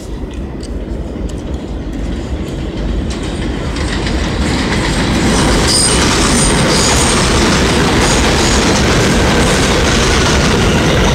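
R160A-1 subway train arriving at an elevated station. The rumble and wheel clatter grow louder over the first five seconds, then hold steady as the cars run past. A brief high wheel squeal comes about six seconds in.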